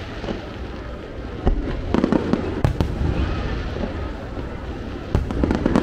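Aerial fireworks going off in quick clusters of sharp bangs and crackles, one from about one and a half to nearly three seconds in and another near the end, over a continuous low rumble.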